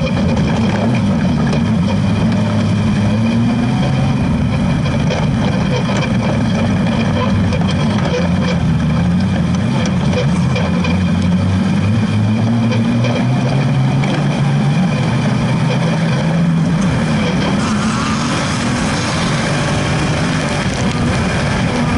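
Off-road race buggy engine running hard, heard close up beside the engine, its pitch rising and falling again and again as it accelerates and backs off. A louder rushing hiss builds near the end.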